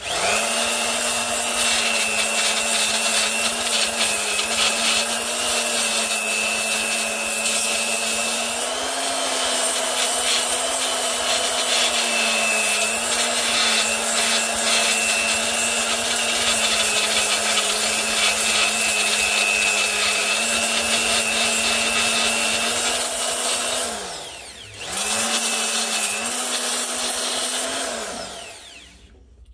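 Electric grinder running steadily against steel hull plating, its motor whining over the hiss of abrasion as the metal is cleaned back for welding. Near the end it winds down, starts up again for a few seconds, then winds down once more.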